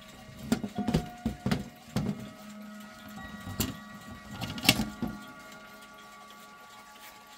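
Irregular knocks and clicks of handling at a granddaughter clock's case, weights and chains, closely spaced for about five seconds and then dying away.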